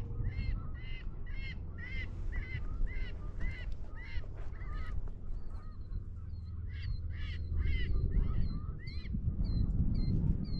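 Goose-like honking calls in an even run of about two a second, giving way to shorter, higher calls in the second half, over a low rumble of wind on the microphone.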